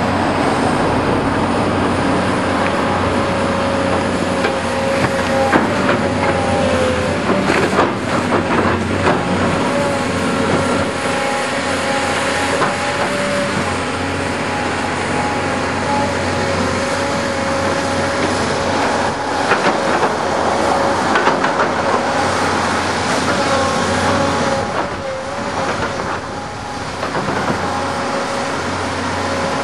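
Tracked hydraulic excavators working in wet clay: diesel engines running with a steady whine that wavers in pitch, and bursts of knocks and clanks from the buckets and tracks about six to nine seconds in and again around twenty seconds in.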